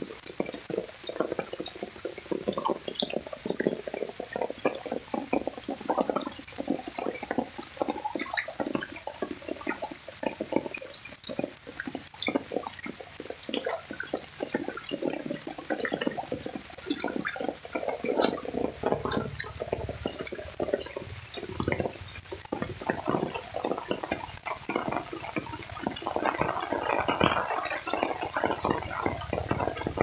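Steady rain falling on foliage and puddles, mixed with footsteps splashing and sloshing through shallow water on a flooded grass path. The splashing gets a little fuller and busier near the end.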